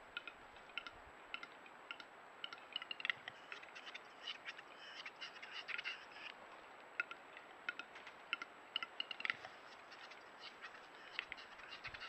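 Western capercaillie calling at the lek: a string of short, irregular clicking calls, thickest in the middle.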